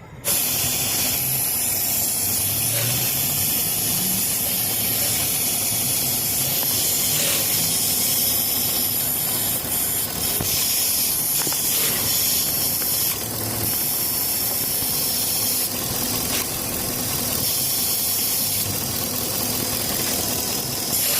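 Truck engine idling with a steady hiss of air being drawn in at the EVAP purge valve, its vacuum hose disconnected. Suction at that port means the purge valve is stuck open.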